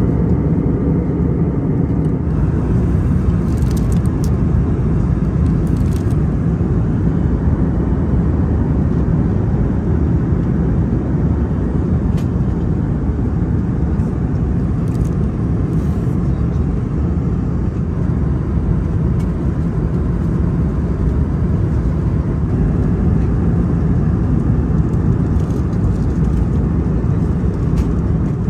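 Steady cabin noise of an Airbus A321neo in flight: a constant low rumble of engines and airflow heard from inside the economy cabin, with a few faint ticks.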